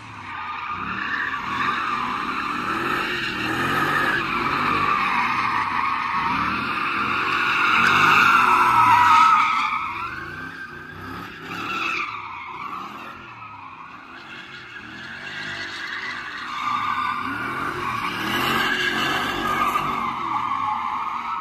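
2009 Pontiac G8 GT's V8 engine revving up and down as the rear tyres squeal through continuous drifting. The squeal is loudest about eight or nine seconds in, eases off around thirteen seconds, then builds again.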